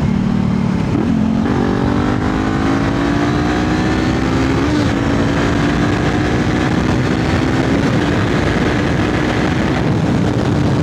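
Honda CBR500R's parallel-twin engine under way. About a second and a half in, its note steps up, then climbs slowly and steadily as the bike accelerates.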